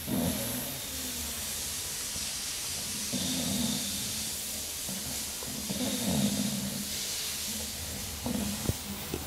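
Pet dog snoring in its sleep: a low snore drawn in about every three seconds, over a steady hiss.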